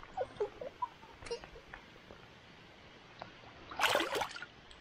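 A released bass splashing in shallow water as it kicks free and swims off: one short burst of splashing a little under four seconds in.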